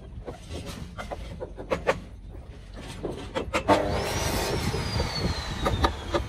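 Irregular knocks of a claw hammer striking and nailing timber shuttering boards. From just past the middle, a steadier engine-like sound joins in, with a high whine that slides slowly down in pitch.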